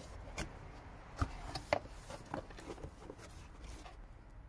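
A cardboard box being cut open with a utility knife and its flaps pulled open: a string of short cardboard scrapes and taps, the sharpest about a second in.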